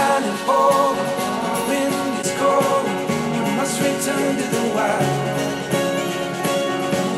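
A song with guitar and singing played back through Yamaha HS5 and HS8 active studio monitors and recorded by microphone, as in a speaker listening test.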